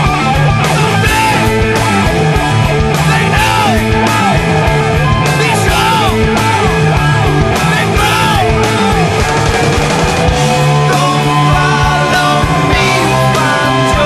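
Hard rock band track with electric guitar, bass and drums playing loud and steady. A lead line of bending notes repeats over the first few seconds, then gives way to longer held notes.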